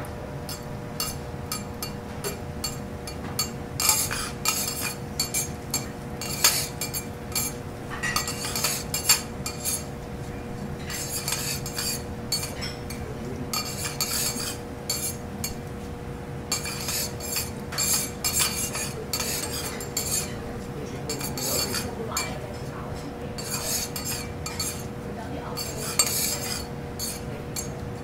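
Metal teppanyaki spatulas clicking and scraping on a steel griddle in frequent irregular strokes, over a steady low hum.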